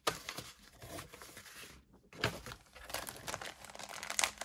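Plastic bag of model-kit parts crinkling and rustling as it is handled, with a short break about two seconds in.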